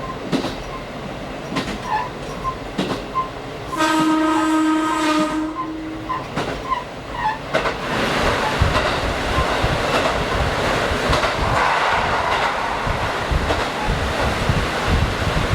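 Diesel express train running over the rails with regular wheel clicks; about four seconds in the train's horn sounds one blast of about a second and a half. From about halfway a louder, steady rushing noise takes over.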